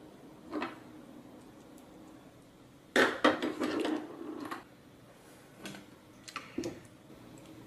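Small plastic and metal robot-kit parts (motor mounts, gear motor, screwdriver) clicking and clattering as they are handled on a tabletop. A burst of sharp clicks comes about three seconds in, with a few lighter clicks later.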